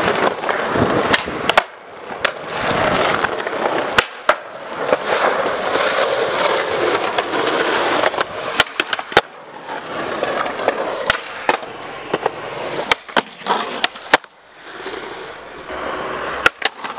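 Skateboard wheels rolling over paving and concrete, a rushing noise that swells and fades, broken by many sharp clacks of the board popping and hitting the ground.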